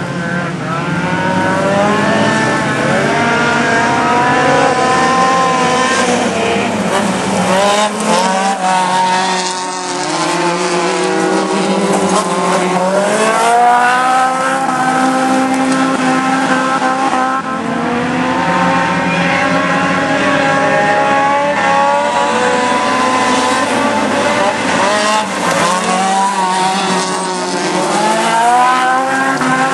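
Several small race cars on a dirt and grass autocross track, engines revving hard, their pitch climbing and dropping again and again with gear changes and lift-offs as the cars pass.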